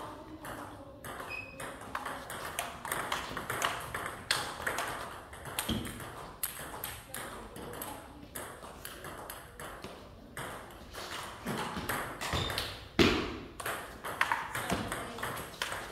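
Table tennis ball clicking off the bats and bouncing on the table in quick rallies, with short gaps between points. About thirteen seconds in there is a louder, sharper knock.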